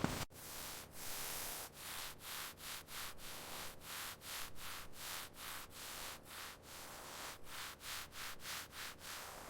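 Faint, repeated back-and-forth rubbing strokes, about two to three a second, like hand sanding or scrubbing a surface.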